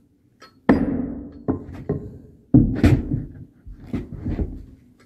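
Hammer striking a wooden block to knock a tongue-and-groove plywood subfloor sheet tight against its neighbour, about seven heavy, irregular thuds that boom through the floor. The strikes at about a second in and midway are the loudest.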